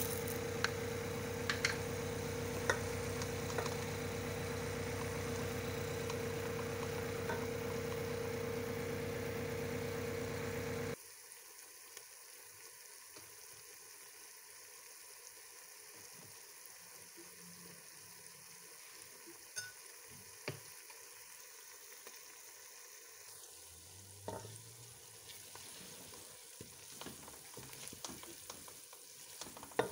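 Chopped onions sizzling as they fry in oil in a steel pot. For the first third a loud steady machine-like hum with a held tone sits over it, then cuts off suddenly. Near the end a wooden spatula stirs and scrapes the pot with a run of clicks.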